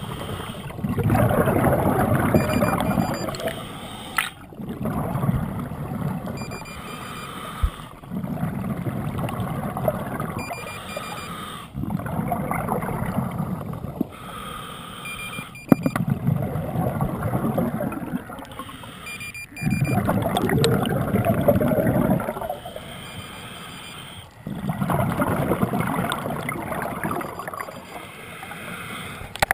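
Scuba diver breathing through a regulator underwater: loud bubbling rushes of exhaled air about every four seconds, with quieter inhalations through the regulator between them.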